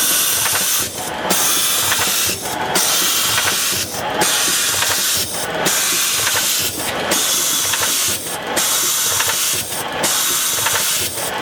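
Colombi C413T in-line CNC spring coiling and delivery machine running: a loud steady hiss that breaks off briefly about every one and a half seconds, in a regular machine cycle.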